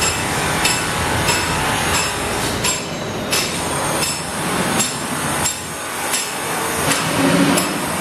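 Hammer blows knocking at irregular intervals, roughly one every second, over a steady background noise.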